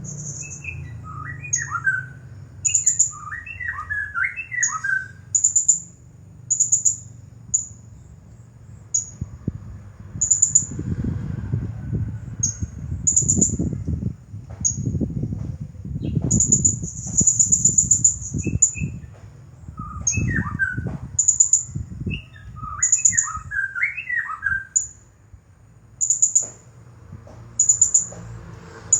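Blue-crowned hanging parrot (serindit) calling nonstop: short, very high-pitched chirps and brief trills repeated about once a second. Twice, lower quick warbling phrases break in, near the start and about two-thirds of the way through.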